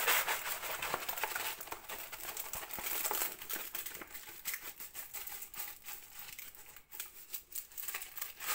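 Crinkling and crackling of a rolled diamond painting canvas and its plastic cover film, handled and rolled backwards by hand to flatten it. Busiest in the first three seconds or so, then softer.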